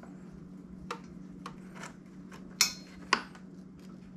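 Screwdriver and plastic screw rivet on a motorcycle fairing: a few light clicks, then two sharp clacks about two and a half and three seconds in, as the screwdriver is set into the rivet to remove it. A steady low hum runs underneath.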